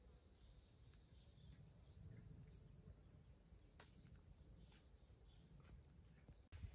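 Faint, steady high-pitched chirring of forest insects, with a low rumble beneath and a few faint clicks; the sound drops out for an instant near the end.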